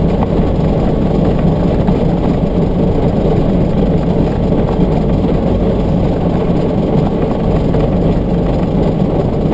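Vehicle engine and tyres on a dirt road, heard from inside the cab: a steady low rumble as it drives slowly.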